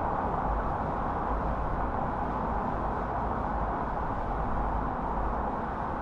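A car driving at steady speed: even road and tyre noise with a low rumble, unchanging throughout.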